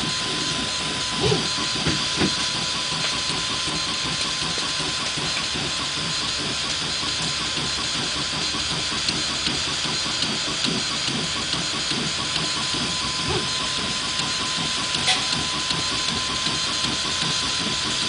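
Bukobot FDM 3D printer printing: a steady hiss with a steady high tone, broken by short, irregular buzzes from the stepper motors as the print head and bed move.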